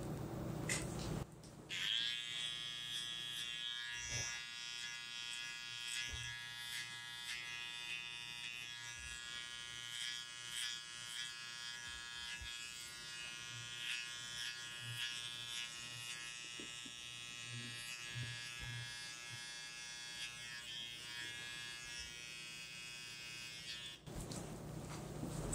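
A barber's small electric trimmer switches on about two seconds in and runs with a steady, even buzz while it is worked along the client's neck. It switches off a second or so before the end, with light handling knocks while it runs.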